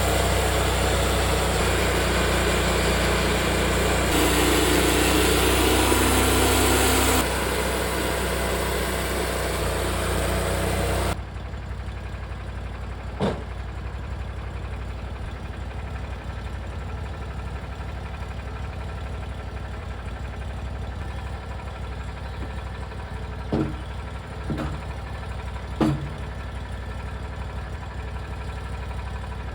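TimberKing band sawmill with its engine running under load as the blade cuts through a pine log, louder for a few seconds midway. About eleven seconds in the sawing noise cuts off suddenly, leaving the engine running steadily, with a few short knocks later on.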